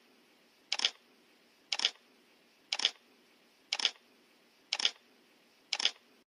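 Camera shutter clicks, each a quick double click, repeating evenly about once a second over a faint hiss.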